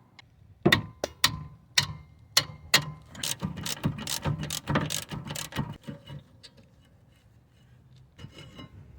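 Ratchet wrench clicking as it turns a 19 mm brake caliper bolt. There are a few separate clicks at first, then a fast run of clicking for about three seconds, a pause, and a few faint clicks near the end.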